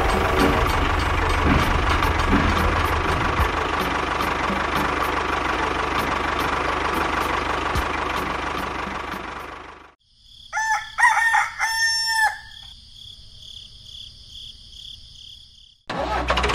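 A steady mechanical whirring noise that fades out, then a rooster crowing in several parts, with a faint steady high chirping behind it. The whirring noise cuts back in abruptly near the end.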